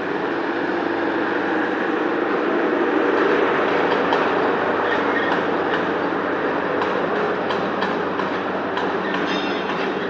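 Factory workshop machinery running with a steady, loud drone, with scattered sharp metallic clicks and knocks growing more frequent in the second half.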